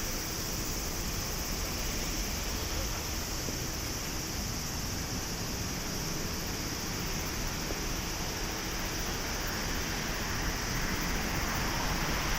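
Steady rushing jet noise from an Airbus A350-900's Rolls-Royce Trent XWB engines, slowly growing louder near the end.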